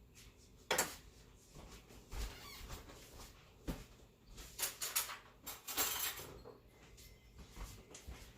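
A kitchen utensil scraping and knocking against a baking dish and plate: one short scrape about a second in, another near the middle, then a cluster of scrapes and clinks.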